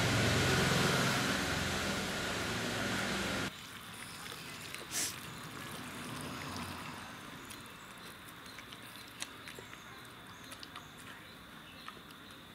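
Cooked onions and chillies being mashed with a masher in a clay pot: soft squishing with scattered light ticks and one sharper knock about five seconds in. For the first three and a half seconds a loud, steady rushing noise covers it, then cuts off abruptly.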